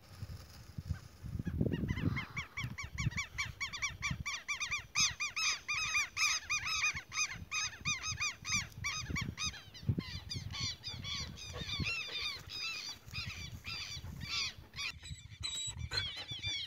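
A group of birds calling over and over, short calls that rise and fall in pitch, several a second from more than one bird at once, over low bumps of wind or handling on the microphone.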